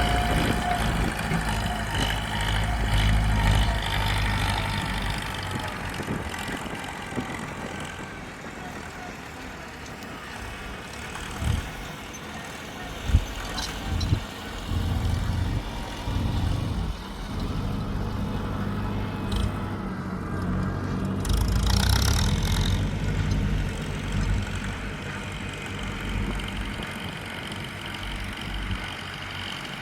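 Ford 6640 tractor's diesel engine running steadily, its level swelling and easing, with a few sharp knocks about halfway through.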